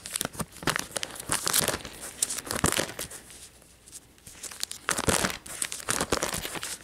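Clear plastic binder sleeve pages crinkling and rustling in a run of short crackles as a hand handles and turns them, with a quieter lull in the middle.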